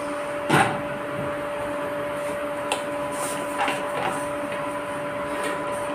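A steady machine hum, with a knock about half a second in and a few light clicks as a plastic jar of makhana (fox nuts) is taken off a kitchen shelf and handled.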